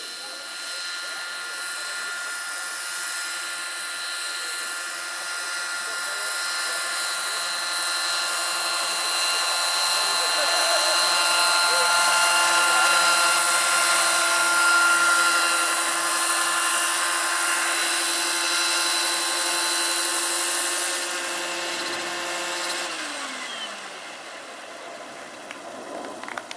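Electric RC scale helicopter (Lockheed XH-51 model, 700 size, 1.6 m rotor) running its motor and main rotor: a steady whine with rotor hiss, loudest as it hovers close. About three-quarters of the way through it drops, and the whine's pitch falls as the motor spools down after the model sets down.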